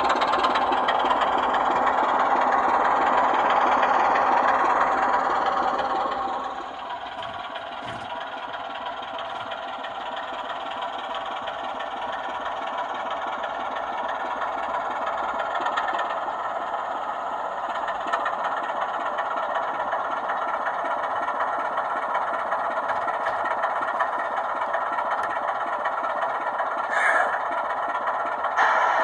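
Diesel engine sound from the speakers of sound-fitted model Class 24 locomotives. It runs louder for about the first six seconds, then drops back to a steadier, quieter engine note, with a couple of short sharp sounds near the end.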